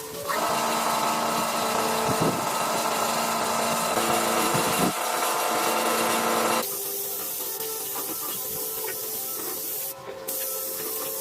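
A power tool running steadily for about six seconds, then stopping suddenly and giving way to a softer, steady hiss.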